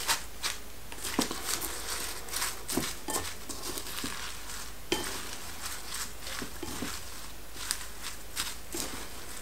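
Garlic chives being tossed by hand and with chopsticks in a bowl of frying flour: a run of soft rustling and crinkling with scattered light taps against the bowl, a sharper one about five seconds in.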